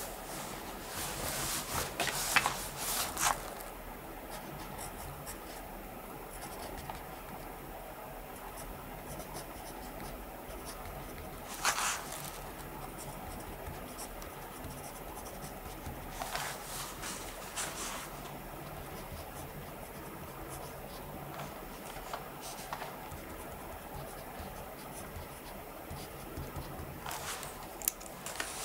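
A pen scratching on paper while writing in a notebook, over a steady faint room hiss. A few louder brief scratchy paper sounds come now and then.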